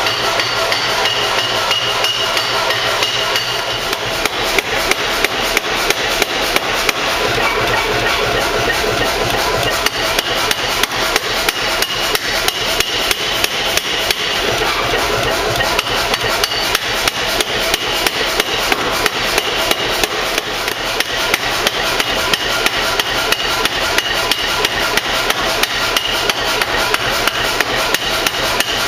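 Pneumatic power hammer striking a red-hot bar between its dies in a fast, even run of blows, over the steady hum of the machine running, as the bar is forged out into a long stem.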